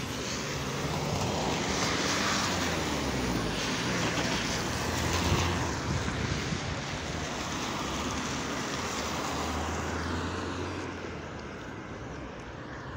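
City traffic: cars driving past on wet asphalt, with engine hum and tyre hiss that swell and then fade away about eleven seconds in.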